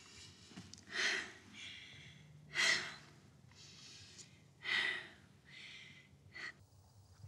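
A person crying: four breathy, shaky sobbing breaths about two seconds apart, the last one shorter and weaker.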